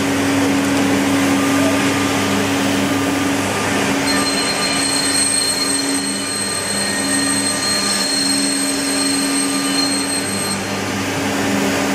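Woodworking machinery running in a furniture factory, a steady hum with a high-pitched whine that starts about four seconds in and stops near the end.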